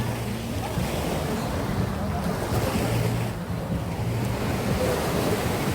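Sea waves breaking and washing up on a sandy beach, a steady surf wash, with wind rumbling on the microphone.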